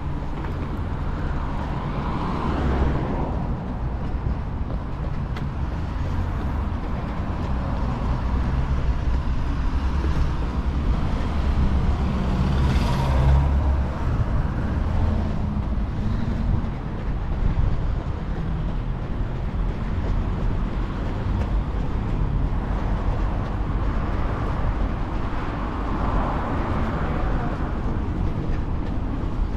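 City street traffic: a steady low rumble of road vehicles, with cars passing by about two seconds in, around the middle and near the end.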